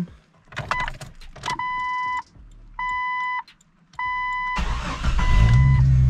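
A few clicks, then the dash warning chime sounding four times, about once every 1.2 s. About four and a half seconds in, the Jeep Cherokee XJ's starter cranks briefly and the engine catches at once and settles into a steady idle, the chime still sounding over it.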